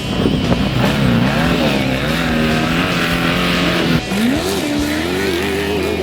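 Off-road race vehicle's engine revving hard, its pitch sweeping up and down, then climbing again about four seconds in and holding a higher, steady note.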